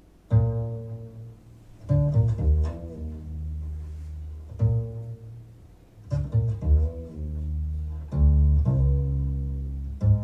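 Recorded jazz played through Marten Oscar Trio loudspeakers and picked up in the room: an instrumental opening led by a plucked upright bass. Low notes start sharply and fade, a new phrase coming every one and a half to two seconds.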